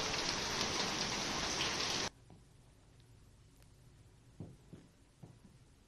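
Heavy rain pouring down and pattering on a wet street, a dense hiss with fine drop ticks. It cuts off abruptly about two seconds in, leaving a low background with a few faint low knocks.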